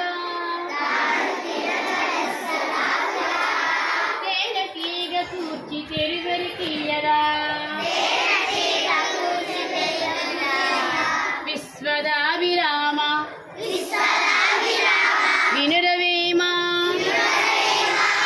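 A group of young kindergarten children singing a song together.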